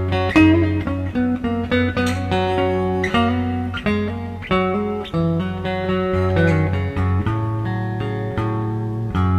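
Three-string dog-bowl resonator guitar being finger-picked: a run of single plucked notes over a ringing low bass note.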